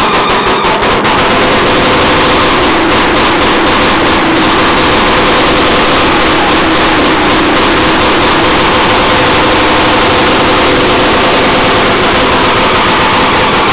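Antique Jacobsen single-cylinder two-stroke engine running steadily at a constant speed.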